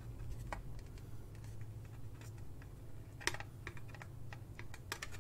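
Light, irregular clicks and taps of hard plastic figure parts being handled and fitted together, over a steady low hum.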